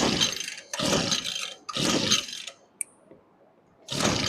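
Echo string trimmer's two-stroke engine being pull-started: three quick yanks of the recoil starter cord about a second apart, a short pause, then another pull near the end. The engine turns over on each pull but does not catch, which the owner puts down to the air-fuel mixture being off.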